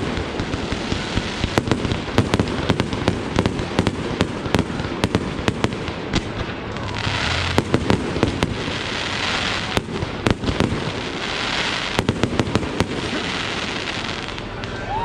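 Aerial fireworks display: a dense, irregular run of sharp bangs and cracks, with several stretches of crackling hiss in the second half.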